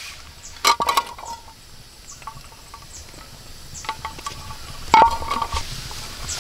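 A few sharp clinks with a brief ring: a cluster about three-quarters of a second in and the loudest about five seconds in, with lighter taps between. Short, high, falling chirps repeat in the background.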